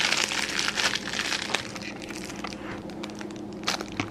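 Clear plastic wrapping around a silicone funnel crinkling as it is handled and lifted from a cardboard box, dense at first and then thinning to scattered crackles, with one sharp crack near the end.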